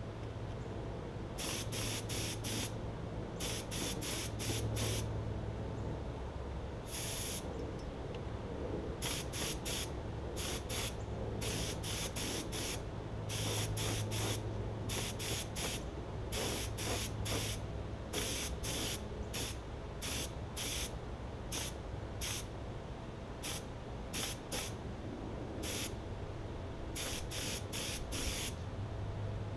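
Compressed-air siphon-feed spray gun spraying paint in many short hissing bursts, the trigger pulled and released for quick passes, sometimes several a second.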